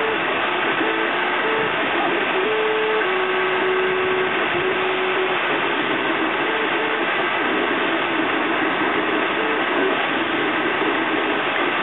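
FDM 3D printer at work: its stepper motors sing in short tones that change pitch as the print head moves, over the steady whir and hiss of the cooling fans.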